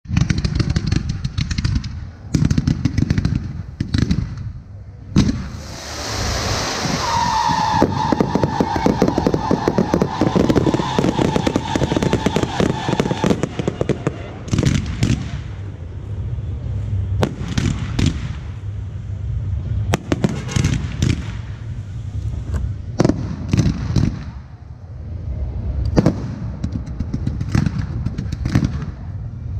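Aerial fireworks going off in a rapid run of sharp bangs. From about six to thirteen seconds in there is a dense stretch of fast crackling with a high whistle over it, and after that the bangs come further apart.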